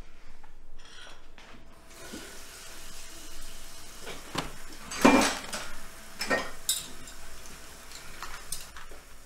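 Dishes and cutlery clinking and clattering as they are washed in a kitchen sink, over a steady hiss of running tap water that starts about two seconds in. The loudest clatter comes about five seconds in.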